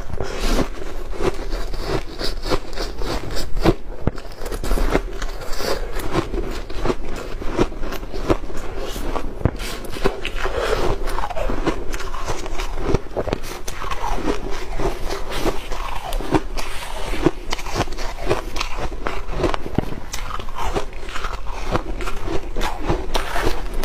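Refrozen shaved ice being crunched and chewed: a dense, irregular run of sharp crackling crunches.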